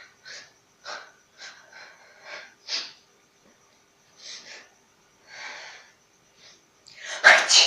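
A person's run of short, catching breaths and sniffs, about nine of them, building up to one loud sneeze near the end.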